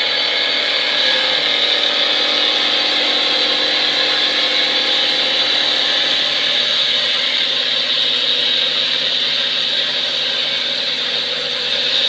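Automatic wood lathe running and cutting wood: a loud, steady machine whine with the hiss of the cutter on the wood.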